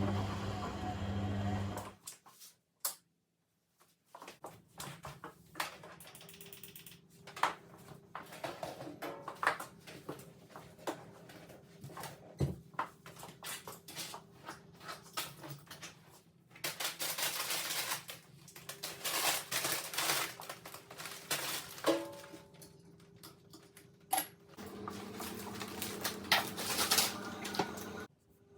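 Handling sounds in a small room: a string of clicks and taps with longer rustling or scraping stretches, over a faint steady hum.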